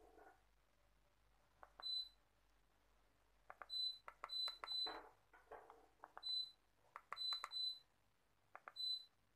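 York split air conditioner's indoor unit beeping to acknowledge remote-control commands: about eight short high beeps, some in quick pairs and triplets, each just after a click of the remote's buttons.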